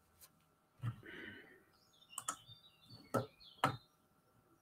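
Sharp clicks on a computer keyboard, about five spread over a few seconds.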